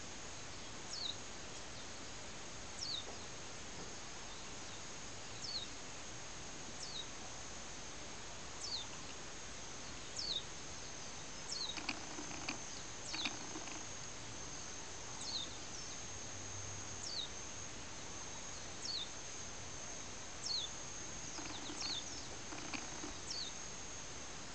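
Insects: a steady high-pitched drone, with a short high chirp that falls in pitch repeating every one to two seconds.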